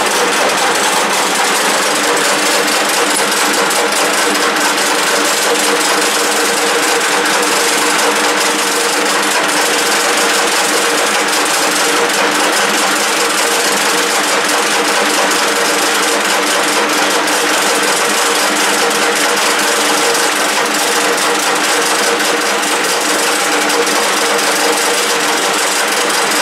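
1K62 screw-cutting lathe running steadily. It gives a constant hum of a few steady tones over an even hiss, unchanged throughout.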